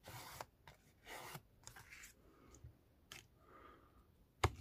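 A paper envelope being folded and creased by hand: short paper rustles and rubbing, with a sharp tap near the end.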